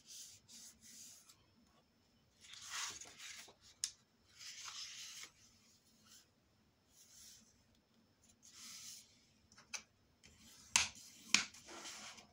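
Hands rubbing and sliding over folded paper to crease the folds flat: a series of short papery swishes, with a couple of sharp taps near the end.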